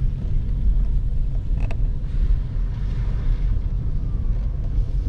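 Low, buffeting rumble of wind noise on the microphone mixed with road noise inside a moving car, with one short knock a little under two seconds in.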